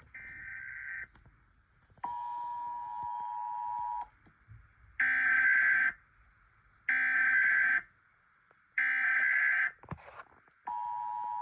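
United States emergency alert tone: long steady two-note electronic beeps about two seconds each, alternating with shorter, louder and harsher beeps about a second long, three in a row between the long ones.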